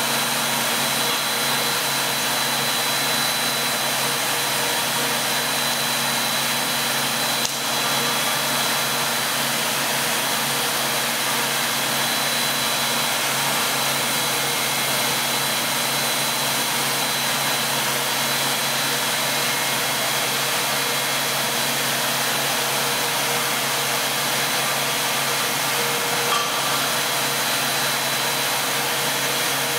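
Two-stage plastic recycling extruder line running steadily: a constant mechanical hum and hiss with a thin high whine over it. Two brief clicks, one about seven seconds in and one near the end.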